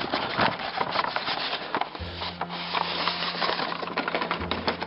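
Cardboard box and packaging being handled as a model locomotive is taken out: a busy run of small scrapes, rubs and clicks. A steady low hum joins about two seconds in, breaks off briefly and comes back near the end.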